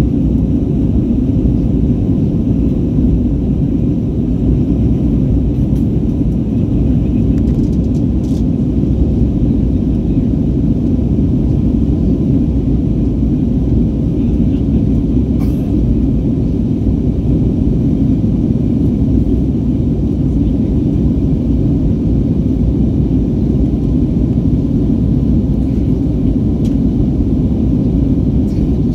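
Steady, loud low rumble of a jet airliner's cabin in flight after take-off, engine and airflow noise heard from a window seat by the wing.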